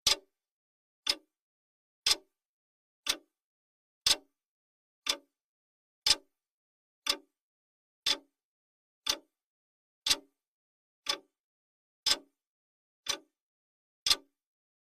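Clock ticking sound effect of a countdown timer, one sharp tick every second, with every other tick louder in a tick-tock pattern.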